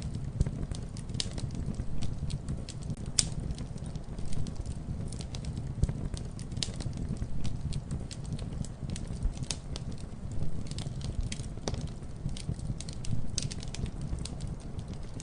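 Campfire burning with a steady low rumble and constant irregular crackling and popping of the wood, a few pops louder than the rest.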